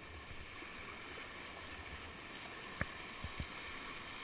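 Whitewater rapid rushing and splashing around a kayak, a steady hiss of moving water. About two-thirds of the way through there is one sharp knock, followed by two softer knocks.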